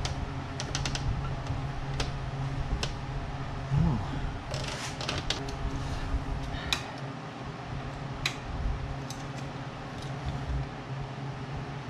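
Hand tools clicking and clinking on the engine's metal as a bolt on the power steering pump mount is tried, with a cluster of clinks about five seconds in, over a steady low hum.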